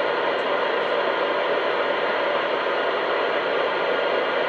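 Steady hiss of radio static from an open CB radio channel, even and unchanging.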